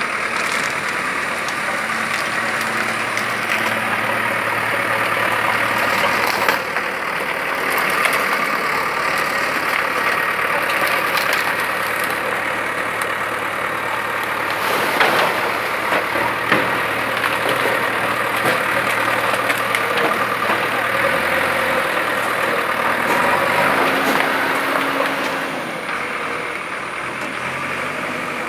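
An engine running steadily with a low hum that shifts in pitch a few times, under a continuous rushing noise.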